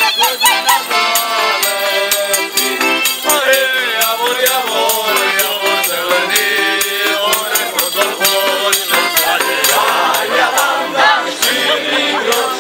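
Slovak folk song sung by a group of voices, with shaken rattling percussion keeping a steady beat of about three to four strokes a second.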